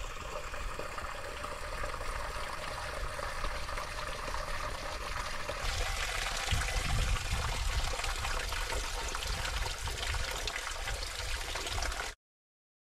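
Running water of a small stream, trickling steadily and growing brighter and louder about six seconds in, with a low rumble on the microphone from then on. The sound cuts off suddenly near the end.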